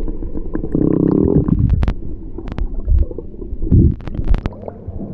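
Muffled underwater sound from a GoPro action camera held below the sea surface: low sloshing and gurgling water with several sharp knocks, a cluster of them near the end.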